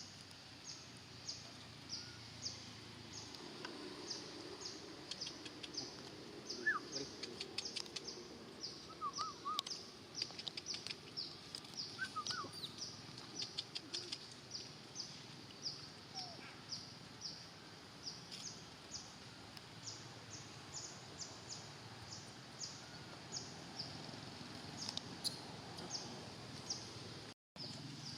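Outdoor ambience: a short high chirp repeated steadily about two or three times a second, with a few brief squeaky calls in between. The sound drops out for an instant near the end.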